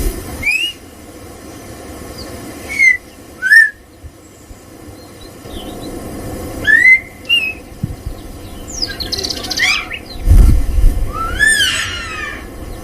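A bird calling: about eight short, sharp whistled chirps at irregular gaps, each a quick rising or arched note. A loud low rumble comes about ten seconds in.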